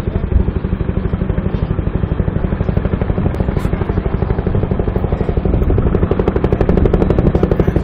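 Bell UH-1 Iroquois helicopter approaching, its two-blade main rotor beating in a fast, even rhythm that grows louder toward the end.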